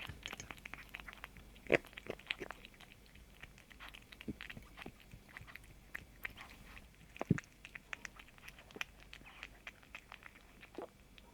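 A kitten chewing crunchy food: a string of small, irregular crunches and clicks, with two sharper, louder crunches about two seconds in and again past the middle.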